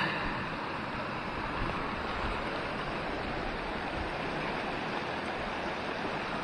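A small mountain stream rushing and splashing over rocks, a steady, unbroken noise.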